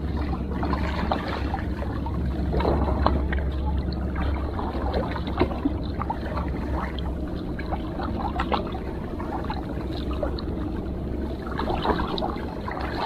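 Sea water lapping and trickling in the shallows, with scattered small splashy ticks, over a steady low rumble of wind on the microphone that eases about halfway through.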